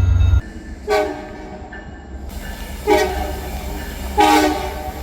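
Train horn sounding three short blasts, each a chord of several notes that dies away, about two seconds apart then just over one. A loud low rumble stops abruptly about half a second in, before the first blast.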